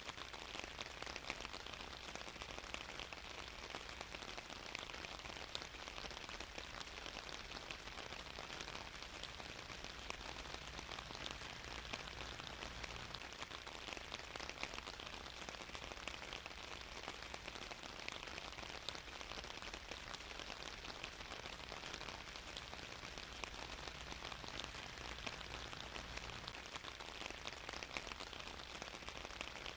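Steady rain falling, a dense, even patter of drops with no let-up.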